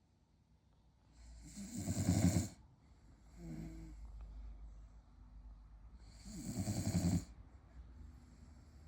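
French bulldog snoring in deep sleep: two loud snores about five seconds apart, each building up and then cutting off sharply, with a softer breath between them.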